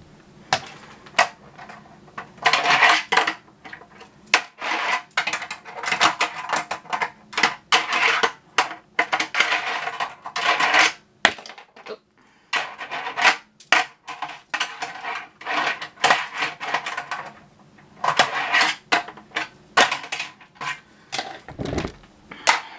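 Tech Deck fingerboard riding a plastic half-pipe ramp: repeated runs of small wheels rolling on the plastic, broken by many sharp clacks of the board popping and landing.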